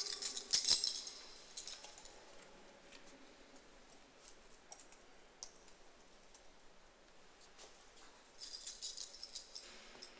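A thurible's metal chains and lid jangling and clinking, in one burst during about the first two seconds and a second burst near the end, with scattered light clinks between as it is swung.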